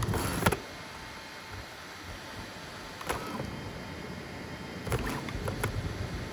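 FDM 3D printer printing: a steady fan hum, with short bursts of stepper-motor movement and clicks near the start, about three seconds in, and again about five seconds in.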